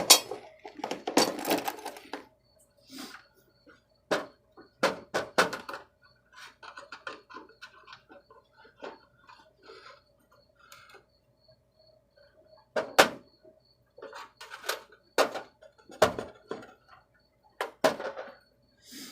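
Small metal parts and hand tools being handled on a thin sheet-metal tool box drawer: scattered clinks and knocks, with a stretch of scraping in the first couple of seconds. A faint steady hum runs underneath.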